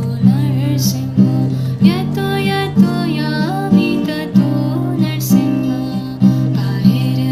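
Background music: a plucked-string accompaniment with a steady beat a little under twice a second, and a melody line that glides in pitch over it.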